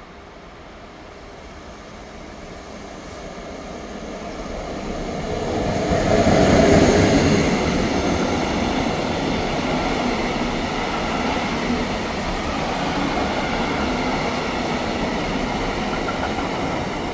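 A train approaching, growing louder over about six seconds, then passing close by with a steady noise of wheels on the rails.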